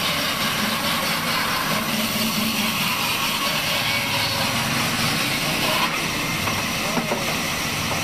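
Large band saw running and ripping through an old, weathered timber beam, a steady hissing noise with no breaks.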